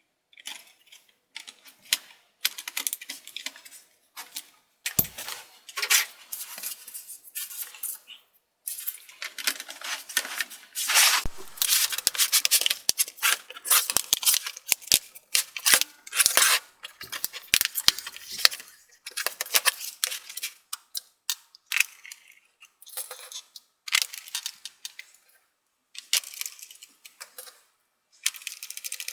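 Laptop parts being handled and fitted back together during reassembly: irregular clicks, taps and scrapes of small hard plastic and metal pieces, with brief silent gaps.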